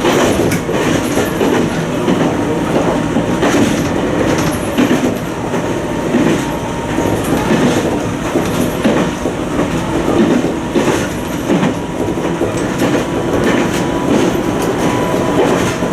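Toyama Chiho Railway 20020-series electric train (the ex-Seibu 10000-series New Red Arrow) running, heard from on board: a steady rumble of the wheels on the rails with irregular clicks over the rail joints.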